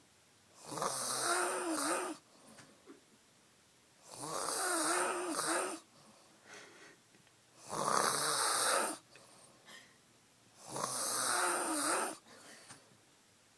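A woman snoring loudly in a deep, drunken sleep: four long snores, one about every three seconds, with quiet breathing in between.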